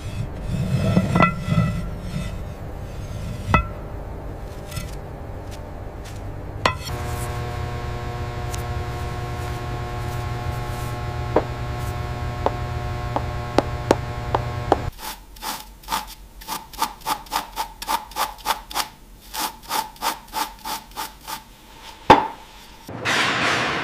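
Scraping on a rusty, dirt-caked metal part: scratchy handwork at first, then a regular run of strokes, about two to three a second, in the second half. Background music holds a steady drone through the middle stretch, and a sharp click sounds near the end.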